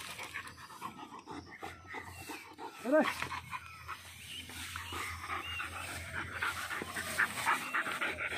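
Pit bull dog panting and scuffling in grass as it grapples with a large lizard, with many quick irregular rustles and clicks. A person shouts once, loudly, about three seconds in.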